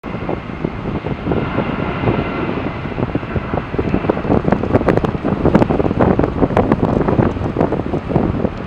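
Gusty wind buffeting the camera microphone, crackling and rumbling in uneven gusts, over a faint steady hum from a distant Airbus A330 jet on final approach.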